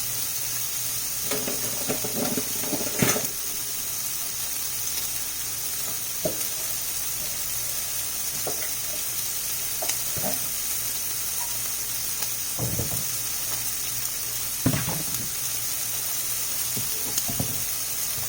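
Food sizzling steadily in a frying pan, with a few short knocks and scrapes of a utensil against the pan.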